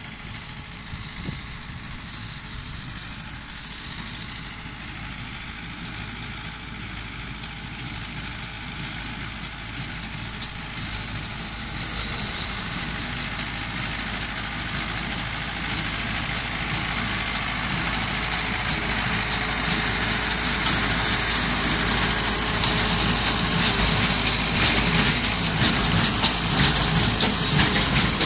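Tractor engine running and a Fortschritt K-454 square baler working as they come closer, growing steadily louder. Toward the end the baler's fast mechanical clatter becomes prominent.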